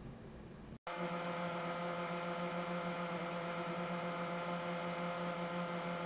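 Steady, even-pitched mechanical hum of a car running while parked, heard from inside the cabin; it starts abruptly about a second in.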